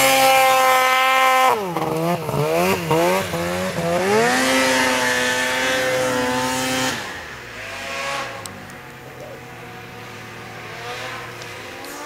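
Two-stroke Polaris PRO RMK snowmobile engine working through deep powder. It is held at high revs, blipped quickly up and down a few times about two seconds in, then revved high again, and it drops to a quieter, lower running note about seven seconds in.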